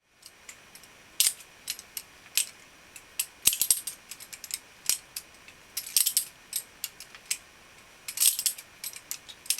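Balisong being flipped through tricks: its handles and blade clack against each other in sharp, irregular metallic clicks, often several in quick succession.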